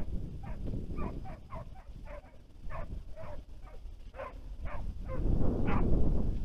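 Scent hounds baying in the reeds, a quick run of short yelping barks about three a second, as the pack gives tongue while driving game. Heavy wind buffets the microphone and grows stronger near the end.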